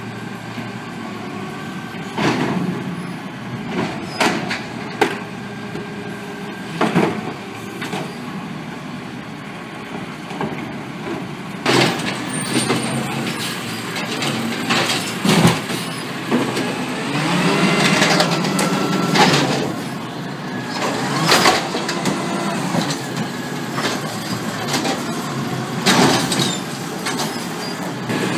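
Diesel engine of a small automated side-loader garbage truck running while it collects a cart, with repeated sharp bangs of cart and refuse. Several times the engine revs up and holds as the hydraulics work.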